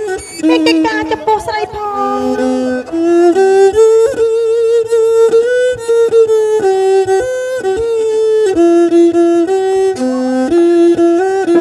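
Lakhon bassac theatre music: a bowed string instrument plays a melody of held notes stepping up and down in pitch.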